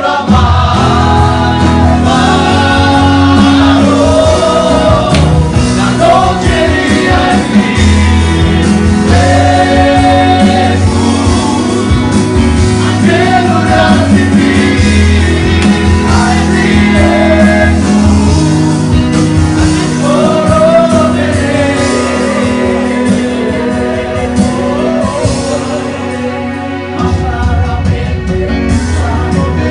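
Men singing a worship song together over an electric keyboard with a steady bass line, and a brief drop in the bass near the end.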